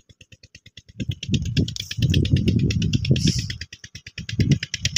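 Uneven rustling and rumbling on the phone's microphone as it is pushed through leafy fodder and mustard plants, starting about a second in. Underneath, a steady rapid ticking of about ten a second runs throughout.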